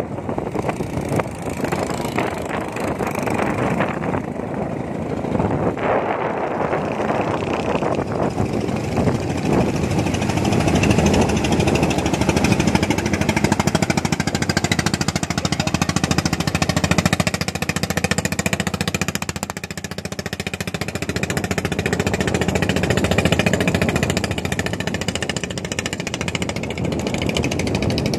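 Small fishing-boat engine running steadily, with a fast, even knocking beat.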